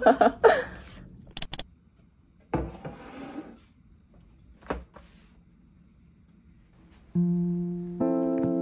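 A woman's voice trails off, then a few small clicks and a short rustle. About seven seconds in, background music of held instrument notes comes in.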